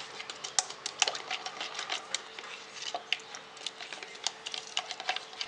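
A spoon stirring gelatin dissolved in warm water in a plastic cup, making quick, irregular clicks and taps against the cup's sides.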